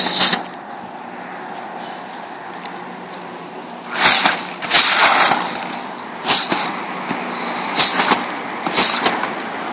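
Broom sweeping water and slush off a flat roof: a string of short, uneven swishing strokes, with a pause of several seconds before they resume.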